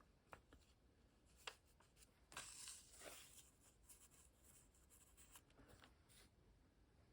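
Near silence with faint rustles and light taps of paper pieces being handled and laid on a journal page, a soft brushing sound about two and a half seconds in.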